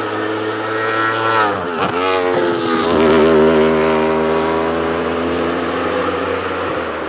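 Aprilia RSV4 1,000 cc V4 engine of a Wolf GB08 Thunder sport prototype passing at speed: its note drops sharply in pitch about a second and a half in, then holds steady as it fades away.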